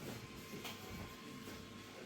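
Faint room sound with a steady electrical hum, a short click about two-thirds of a second in and a couple of soft low knocks just after.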